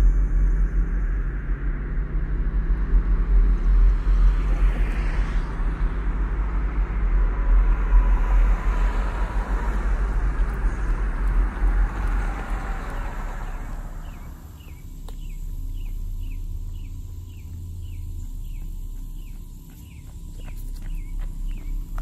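Roadside traffic noise: a steady low rumble with a car passing about five seconds in. About fourteen seconds in it cuts to a quieter outdoor scene where a bird repeats a short falling chirp about twice a second.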